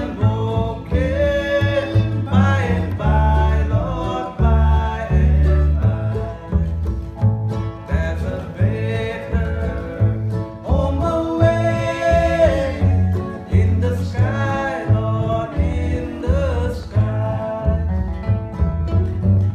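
Acoustic bluegrass band playing live: a man singing a melody over a strummed acoustic guitar, with other acoustic string instruments and steady low notes on the beat.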